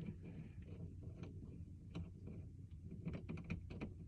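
Faint scattered clicks and light taps of small metal hardware being handled, as the tub overflow plate and its screws are being fitted, over a low steady hum.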